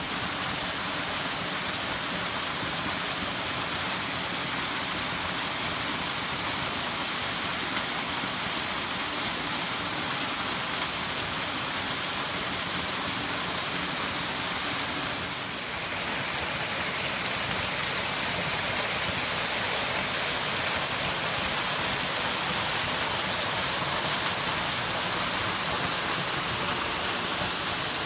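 Small waterfall splashing onto rocks and a shallow stream running over stones: a steady rush of water, dipping briefly about halfway and a little louder after.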